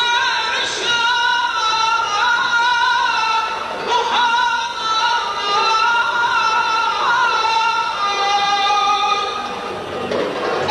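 A solo singing voice through a microphone, holding long, wavering notes with ornamented turns and slides and no steady beat.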